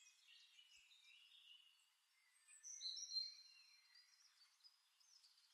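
Near silence, with faint high-pitched chirps and whistles, loudest about three seconds in.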